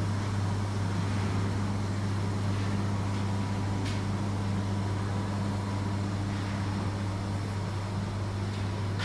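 Steady low hum, a constant drone with a fainter higher tone above it, and a single faint click about four seconds in.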